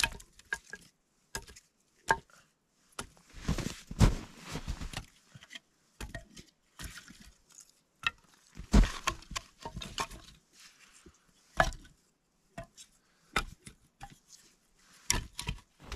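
Wood being handled: irregular knocks and cracks, a few sharp, with some longer crunching bursts and quiet gaps between them.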